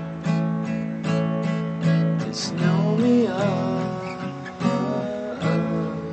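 Acoustic guitar strummed in a steady rhythm, a fresh chord stroke roughly every second.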